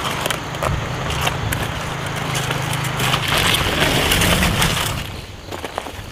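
Napa cabbage crunching and rustling as its outer leaves are trimmed with a knife and the head is handled into a woven basket, with many crisp little snaps and clicks. A low steady hum runs under the first half.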